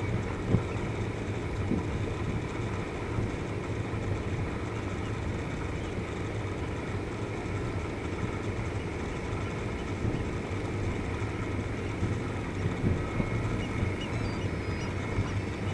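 Steady low drone of a tall ship's engine as it motors past under bare masts, even throughout.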